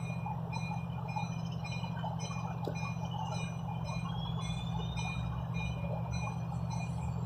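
Rapid high-pitched dinging repeating about two to three times a second, typical of a railroad grade-crossing warning bell, over a steady low rumble.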